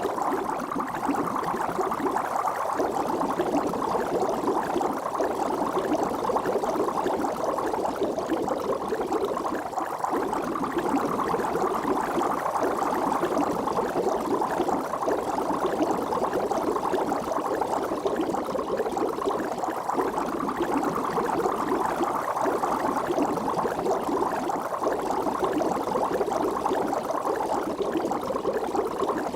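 Water bubbling continuously: a dense, even churn of many bubbles that goes on without a break.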